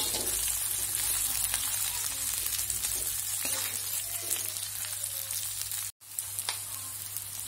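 Diced tempeh and ground chili paste sizzling in hot oil in a wok, stirred with a spatula that gives a few sharp scrapes and taps against the pan. The sound cuts out for a split second about six seconds in.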